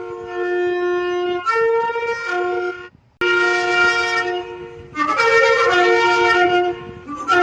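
Shofar blowing long sustained blasts, the pitch stepping up and down between a lower and a higher note. There is a brief break about three seconds in, and fresh blasts start near the end.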